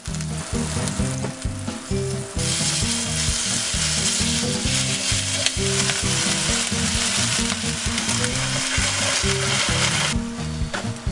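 Diced chicken frying in oil in a nonstick pan, a steady sizzle that grows louder about two seconds in and eases off near the end.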